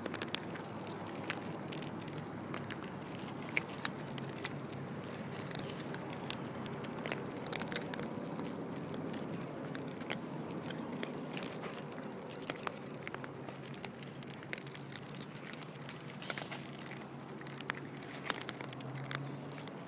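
Several cats crunching dry food close up, a continuous run of irregular sharp crunches and clicks over a steady chewing hiss.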